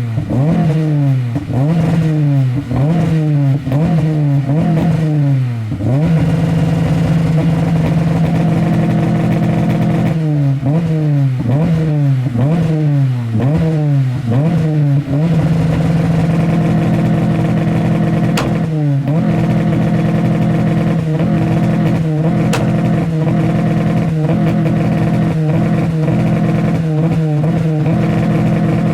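Honda S2000's four-cylinder engine, loud, revved in quick blips that climb and fall back about once a second, then held at steady high revs for long stretches. A second run of blips comes about ten seconds in, and the held revs break with a few brief dips later on.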